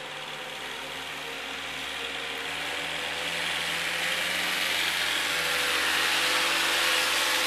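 Engine of a truck-mounted forklift running under load, growing steadily louder as the machine drives closer carrying a pallet of sod.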